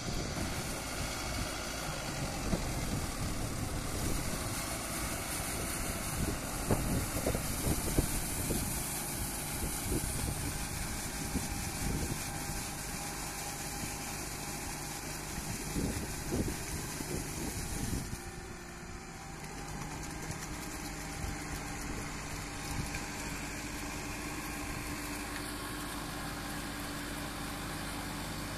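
Kubota MU5501 tractor's four-cylinder diesel engine running steadily as the 4WD tractor works through deep paddy mud with a rotary tiller on the back. Irregular knocks and splashes stand out over the engine for the first half, and a little past halfway the sound drops and runs more evenly.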